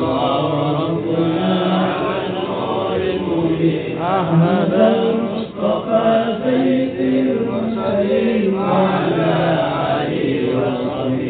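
A man chanting Arabic devotional verse (sholawat) solo into a microphone, long held notes with wavering ornaments, broken by short pauses for breath.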